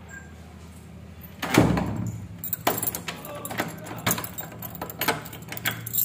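A door knocking shut about one and a half seconds in, then a run of irregular clicks and jangling of keys.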